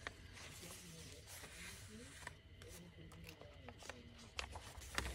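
Soft rubbing and rustling of thick paper pages and tucked cards as a handmade journal is handled and a page is turned. There are a few light taps and knocks, the sharpest just before the end.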